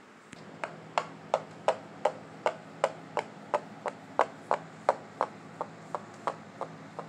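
A small toy figurine is tapped along a wooden surface in an even run of hard knocks, about three a second, like a figure's footsteps. A faint steady hum runs underneath.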